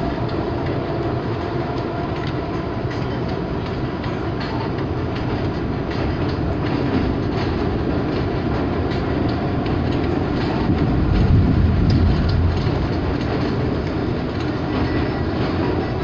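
Subway train running express at speed, heard from inside the car: a steady rumble and rattle with faint clicks from the wheels, swelling to a louder, deeper rumble for a couple of seconds about eleven seconds in.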